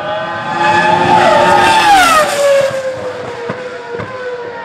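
Race car passing at speed: the engine note builds, is loudest about two seconds in, then drops in pitch as the car goes by and settles into a weaker steady drone.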